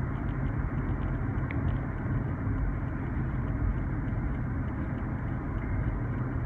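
Steady road and engine noise of a car driving at cruising speed, heard from inside its cabin: a low, even rumble.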